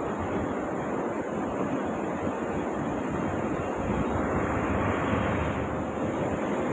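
Electric arc welding on a pipe joint: a steady crackling sizzle from the arc, with a faint steady hum coming in near the end.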